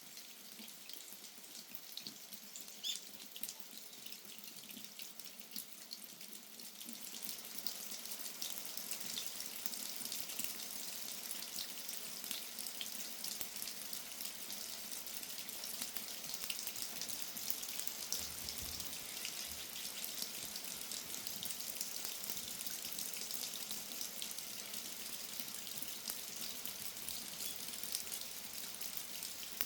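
Rain falling steadily, a hiss with many small drop ticks, growing louder about seven seconds in as the shower gets heavier.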